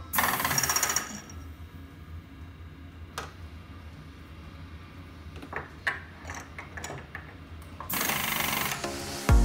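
Milling machine's pneumatic power drawbar hammering for about a second as a tool holder is released from the spindle, then a few sharp clicks of tooling being handled, then the drawbar hammering again near the end to lock in the new tool. A low hum runs underneath.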